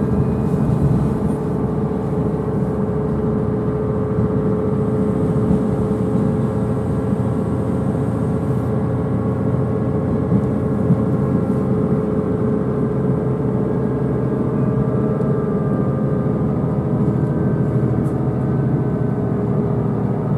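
Diesel multiple unit heard from inside the passenger car while moving slowly: the underfloor diesel engine runs steadily with a constant whine over a low rumble from the running gear.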